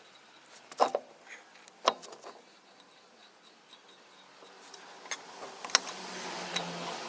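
Sharp metal clinks and knocks, three loud ones (about one second in, two seconds in, and near the end) with lighter handling rattles between, as wheel hardware and tools are handled while the rear wheel is refitted after a drum-brake repair.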